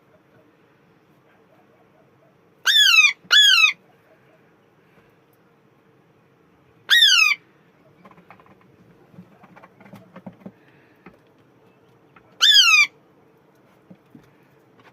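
Alexandrine parrot giving loud, harsh squawks, each a short call falling in pitch: two in quick succession about three seconds in, then single calls about seven and twelve seconds in. Faint scattered clicks fall between them, around ten seconds in.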